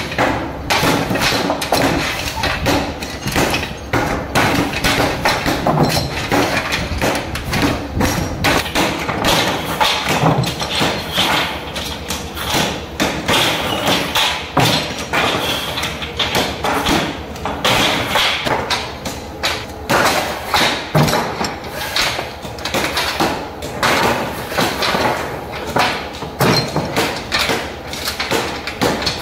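Continuous workshop clatter of metal brake-shoe parts (shoes, return springs and steel plates) being handled, fitted and set down on steel benches, with frequent irregular knocks, clicks and thuds.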